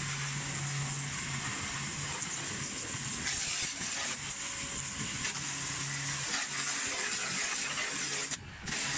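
Pressure washer spraying water onto air-conditioner parts: a steady hiss of the jet over the hum of the washer's motor. It cuts out briefly near the end.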